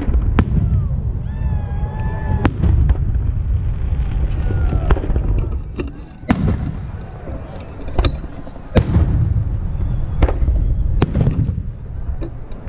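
Aerial fireworks shells bursting: about ten sharp bangs, roughly one every second or so, over a low rumble.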